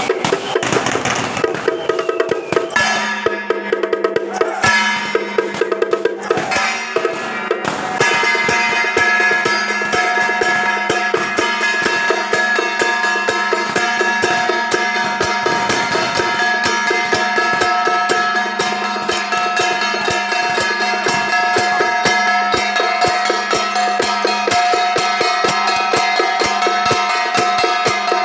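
Temple procession music: rapid drum, wood-block and cymbal strokes. From about eight seconds in, a sustained held melody joins above the percussion.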